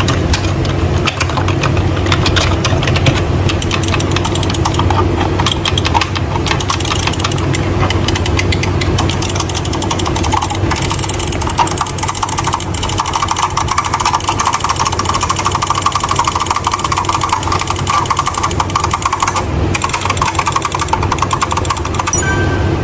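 Membrane keyboard keys being typed fast and continuously, a dense steady clatter of key presses.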